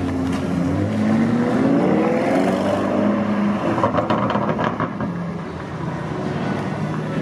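A sports car's engine accelerating away, its revs climbing in pitch for about two seconds and then dropping back. A brief series of sharp clicks follows about four seconds in.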